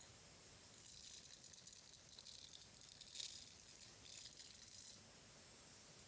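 Soft close-microphone ASMR trigger sounds: faint, high crackling and rustling that comes in clusters, with a brief sharper crackle about three seconds in.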